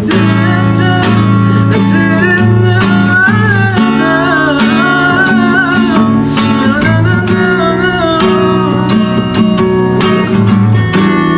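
Acoustic guitar strummed, with a man singing a slow song over it.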